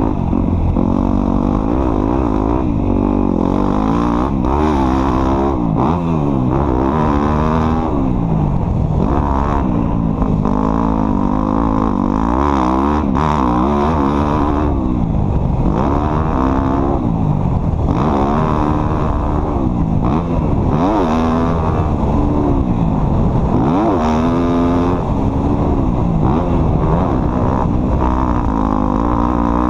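Engine of an off-road vehicle being driven hard, its pitch rising and falling over and over as the throttle is opened and closed, with no break.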